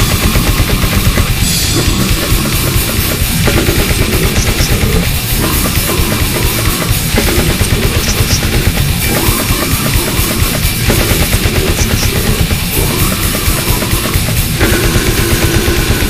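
Death metal recording: fast, dense drumming under loud distorted guitars, playing without a break.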